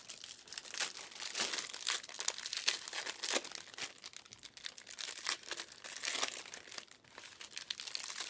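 Trading card pack wrappers crinkling and tearing as packs are opened and handled, an irregular crackle throughout.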